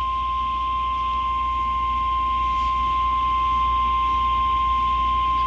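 NOAA Weather Radio 1050 Hz warning alarm tone: a single steady tone held unbroken over the hiss of the radio signal. It marks an incoming warning broadcast, here a severe thunderstorm warning.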